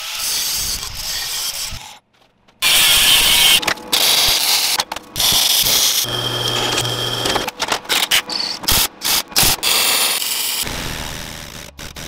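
Metal-shop power tools in quick cuts: an angle grinder on steel, then a drill press boring through sheet steel with a steady motor hum and whine, among other short bursts of metalwork noise.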